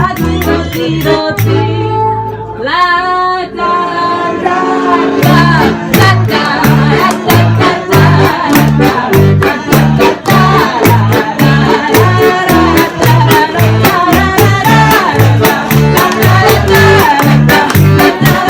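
Live ensemble music with singing: held notes and a rising glide in the first few seconds, then a steady beat with a repeating bass line and regular drum hits from about five seconds in.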